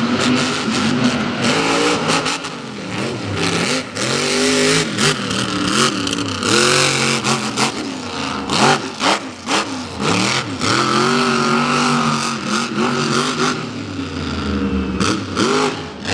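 Monster truck engine revved hard over and over, its pitch climbing and falling with each throttle stab, with sharp bangs mixed in.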